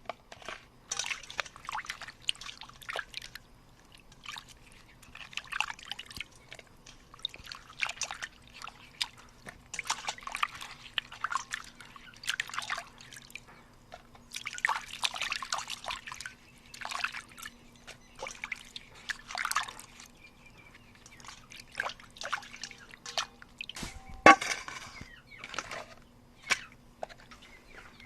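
Water splashing and trickling in short, irregular bursts over a faint steady hum, with one sharp knock about 24 seconds in.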